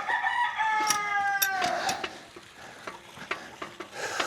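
A rooster crowing once, a single call of about a second that drops in pitch at its end, over scattered clicks and rustling of hay being handled.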